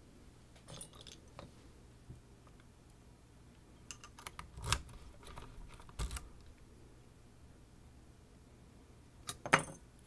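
Light metallic clicks and small rattles from a Clavis F22 lock and picking tools being handled: scattered single clicks, with a louder short rattle near the end.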